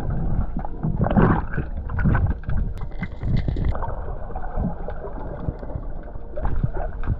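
Water sound recorded underwater by a swimmer's camera: a muffled rushing and sloshing, with louder surges about one and two seconds in.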